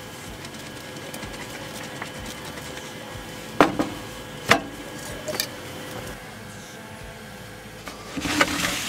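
Stainless steel cookware clinking as food is tipped from a pot into a steel bowl: two sharp metallic knocks about a second apart, then a lighter one, over a steady faint hum. A short rustling scrape comes near the end.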